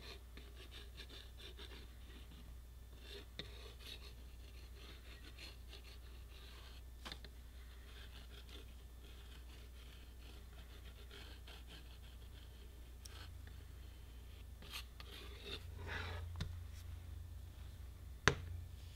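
Faint, scratchy rubbing of a plastic glue-bottle nozzle dragged along the edge of a plastic strip to spread the adhesive. A single sharp knock of handling comes near the end.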